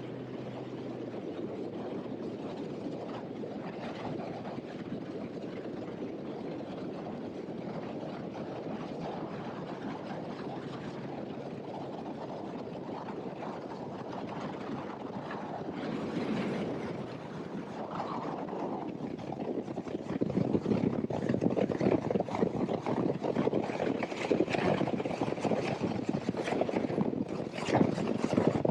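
Mercury 300R outboard running as the bass boat runs across the water, under a steady rush of wind and water. About twenty seconds in the rush grows louder and choppier.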